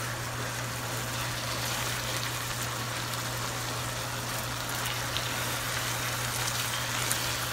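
Ground turkey and green scallions sizzling in a frying pan while a wooden spoon stirs them: a steady hiss, with a steady low hum underneath and a few faint ticks.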